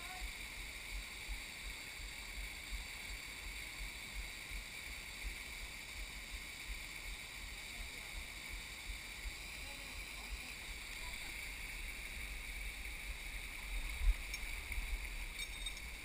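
Steady rush of a small waterfall pouring over rock, with low wind rumble on the microphone and a few bumps near the end.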